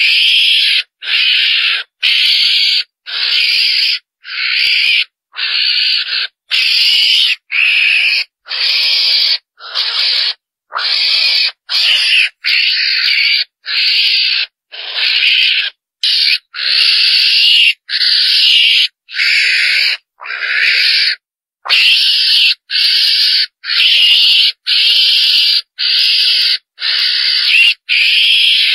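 Calls of the chồn đèn, a small wild carnivore, used as a hunting lure to draw the animals in. They are raspy and hiss-like, repeated about once a second with short gaps between them.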